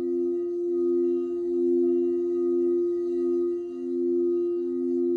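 Crystal singing bowls ringing in a sustained chord: two held pitches a third apart, with the lower tone pulsing in a slow waver about once a second.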